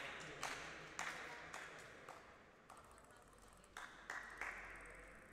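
Table tennis ball being bounced between points: light ticks about two a second that fade over the first two seconds, then three more in quick succession about four seconds in.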